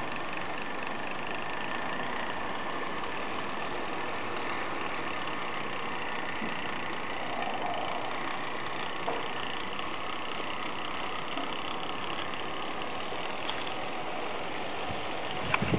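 G-scale model locomotive's electric motor and gear drive running as it rolls along garden-railway track: a steady, even whirr with a faint high hum.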